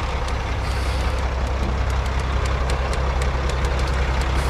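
Diesel engine of heavy construction equipment running steadily, with scattered sharp clicks over it.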